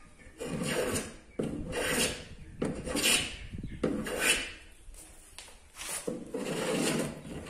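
Small hand plane trimming the overhanging edge of a high-pressure laminate (Formica) sheet flush with the counter, cutting the excess laminate. About six separate strokes, roughly one a second, the last one longer.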